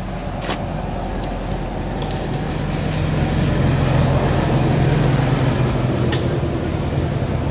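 A motor engine running steadily, a low hum that grows louder about three seconds in, with a few faint clicks.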